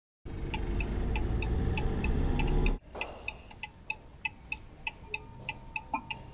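Theme music opening with a steady clock-like ticking pulse, about three ticks a second, over a deep rumble that cuts off abruptly about three seconds in; the ticking carries on with faint held tones.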